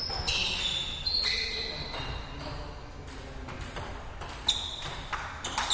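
Table tennis rally: the celluloid ball clicks sharply off the rubber paddles and the table several times, bunching up near the end. Short high squeaks from sneakers on the tiled floor come in among the hits.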